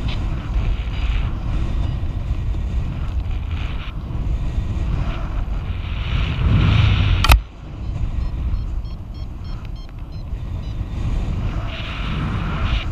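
Airflow buffeting the microphone in paraglider flight, swelling and easing. A sharp click comes about seven seconds in, after which the wind is quieter. Then come faint short high beeps at a few pitches, typical of a paragliding variometer signalling a climb.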